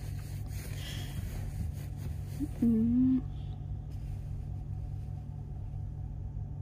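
A steady low rumbling hum of background noise, with a brief voiced 'mm' from a person about two and a half seconds in.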